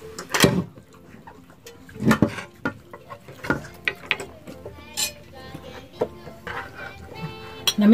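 Clinking and scraping of a ladle in a non-stick frying pan and of spoons on plates, with a handful of sharp knocks spread through.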